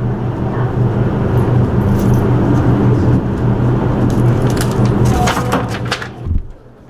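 Loud, steady low mechanical hum, with rattling clicks near the end, cutting off with a thump about six seconds in.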